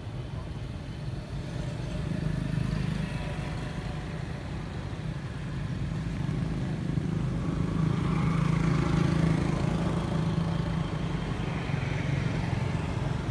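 Steady low engine hum of a motor vehicle, swelling louder past the middle.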